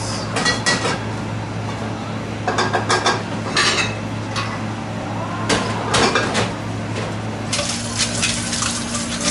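Dishes and cutlery clattering in a restaurant kitchen, in several short bursts, over a steady low hum. Near the end a tap starts running into a stainless steel sink.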